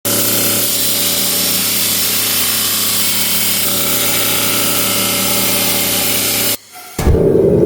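Electric grinder running steadily against steel, a constant motor hum under a loud grinding hiss. It cuts off abruptly near the end, and a deeper, louder rumble takes over.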